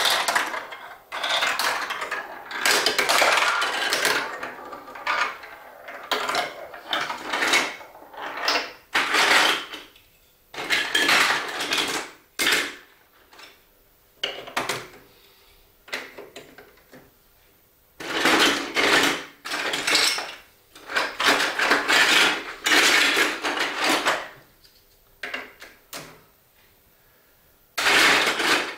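Marbles rolling and clattering down a plastic Duplo-block marble run track, in a series of rattling runs a second or two long with short quiet gaps between them.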